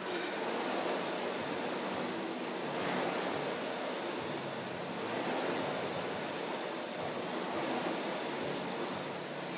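Concept2 indoor rowing machine's air-resistance flywheel whooshing, swelling with each stroke about every two seconds.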